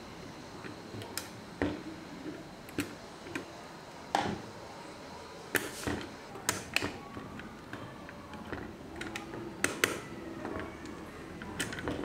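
Stock Intel CPU cooler being unfastened from a motherboard: irregular clicks and light plastic knocks as its push-pin fasteners are turned and popped free, with a few sharper clicks around the middle.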